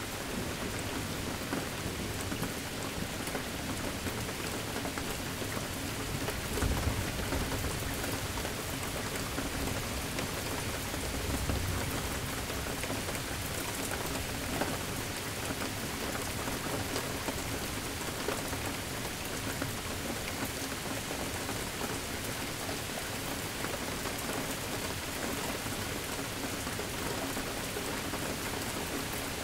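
Steady rain falling and pattering, with a low thunder rumble about seven seconds in and another around twelve seconds.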